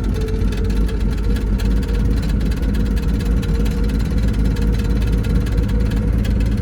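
Chevy Nova's engine running steadily, a low even rumble with no revving.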